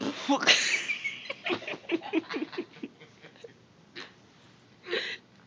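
Stifled, squeaky human laughter: a breathy burst, then a run of short giggles that fade out within about three seconds, and a short snorting breath near the end.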